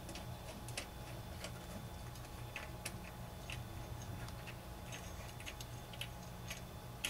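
Light metallic clicks and ticks, irregular and about one or two a second, as the lawn mower's blade bolt is threaded by hand into the blade adapter. A low steady hum runs underneath.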